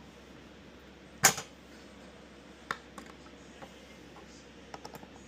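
Furniture parts and hardware being handled during flat-pack assembly: scattered clicks and taps, with one loud sharp knock about a second in and a quick cluster of small clicks near the end.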